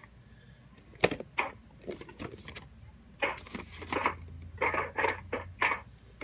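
Hands handling and turning over a boxed VHS tape's case: a sharp click about a second in, then a run of short rustling scrapes.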